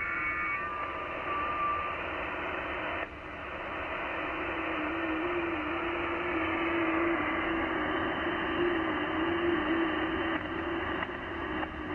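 HF transceiver receiver audio tuned to 20 m FT8: steady band hiss filtered off above about 3 kHz, carrying the stepping warble tones of FT8 digital signals. A few signals stop near the start, and a lower stepping tone begins about four and a half seconds in.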